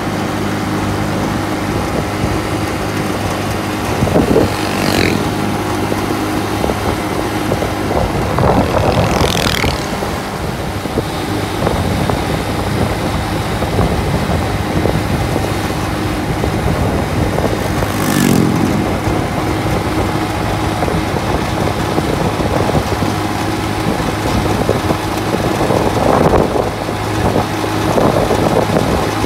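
Running engine and road noise of a moving road vehicle heard from on board, a steady hum with rushing wind and tyre noise. There are brief swells about four, nine, eighteen and twenty-six seconds in.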